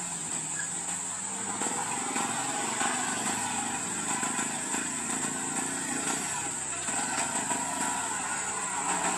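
Vehicle engines running at low speed in slow traffic: a box truck and a three-wheeler auto-rickshaw, over a steady high-pitched whine.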